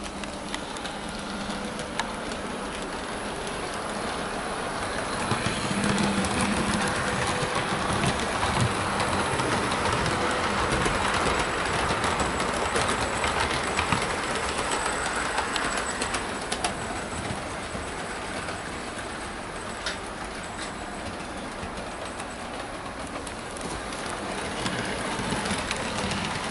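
Hornby OO-gauge Inter-City HST model train running along the layout's track: a steady rumble of wheels on rail with sharp clicks over the rail joints. It grows louder as the train comes close, fades away, then builds again near the end as it comes round once more.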